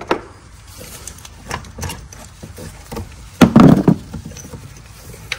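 Hand tools (a ratchet and extension) handled in an engine bay: scattered knocks and clicks, with a louder clatter about three and a half seconds in.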